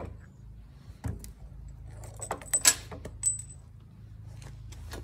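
Metal parts clinking and knocking a few times as a Ford 1710 tractor's hydraulic control valve assembly is worked off its housing by hand, with short ringing metallic tinkles among the knocks.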